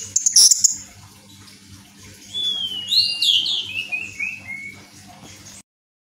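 Orange-headed thrush singing: scratchy, high notes in the first second, then about two seconds in a whistled phrase that slides up and then tumbles down in a quick run of notes. The sound cuts off suddenly just before the end.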